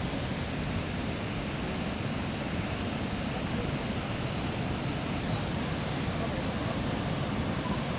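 Steady rushing noise with a choppy low rumble: wind on the microphone mixed with the engines of slow-moving pickup trucks approaching along the road, growing slightly louder near the end.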